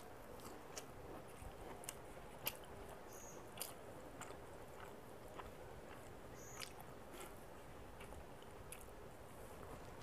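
Close-miked mouth sounds of someone chewing a mouthful of rice and fried bitter gourd, quiet, with scattered soft clicks and smacks every second or so.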